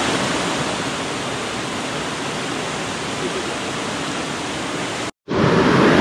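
Mountain stream rushing over rocks and a small waterfall: a steady, even hiss of running water. It cuts out for an instant about five seconds in and comes back a little louder.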